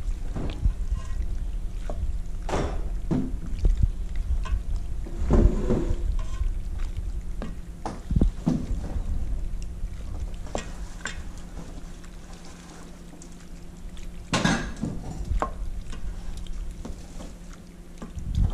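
Wooden spoon stirring penne pasta in a cheese sauce in a stainless steel bowl: wet, sticky mixing with irregular knocks and scrapes of the spoon against the bowl.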